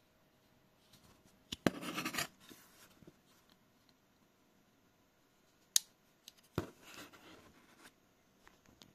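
Lone Wolf T2 folding knife being handled: short scraping rasps as it is turned in the hand, and a single sharp metallic click a little before the middle as the blade is folded shut, followed by a knock and more rustling as the knife is set down on the cardboard box.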